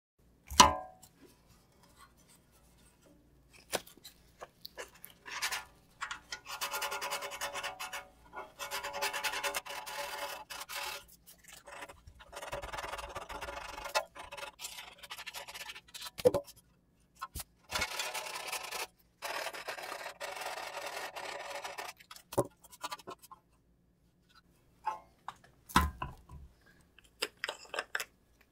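P180 sandpaper rubbed by hand over a brake dust shield: scratchy sanding strokes in stretches of a few seconds each, with short pauses and handling taps between them. A sharp knock about half a second in is the loudest sound, and a few clicks and taps come near the end.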